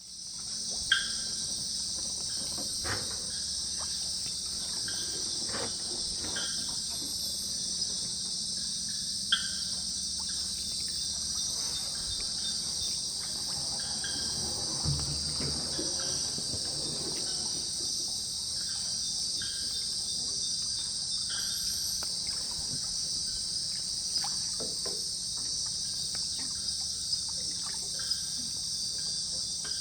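Steady, dense chorus of night insects, shrill and unbroken. Short calls from another animal break in every few seconds, and a few sharp clicks come through, the loudest about a second in.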